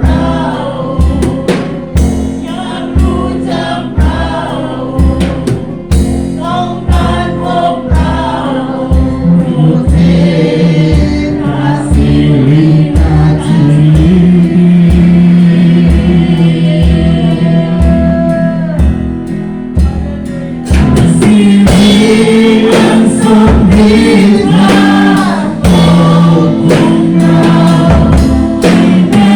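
Christian worship song: voices singing over a band with a steady beat, about two beats a second. About two-thirds of the way through the music grows fuller and louder.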